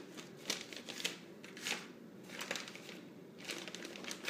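Plastic wrapper crinkling and rustling in irregular bursts as a replacement laptop LCD screen is unwrapped.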